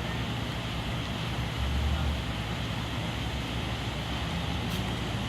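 Steady low rumble of heavy construction machinery's engine running, swelling briefly about two seconds in, with wind noise on the microphone.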